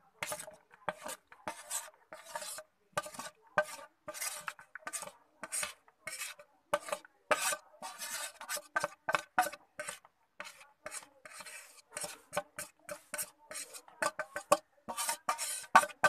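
Metal spoon scraping a plate in short, repeated strokes, pushing chopped onion, grated cheese and spice powders off it into a plastic mixing bowl.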